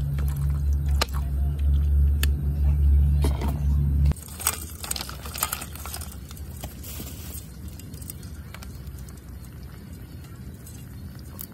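A loud, steady low hum with a few sharp clicks stops abruptly about four seconds in. Then hands rummage through live crabs and snails in an aluminium pot, their shells clicking and scraping against each other and the metal.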